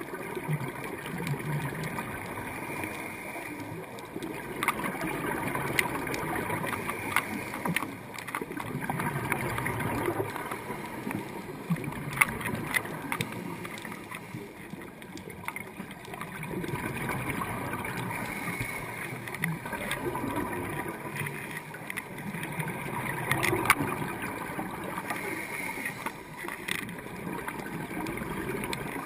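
Scuba regulator breathing heard underwater through a camera housing: exhaled air bubbles rush and gurgle, swelling and fading in slow cycles every few seconds. A few sharp clicks come through.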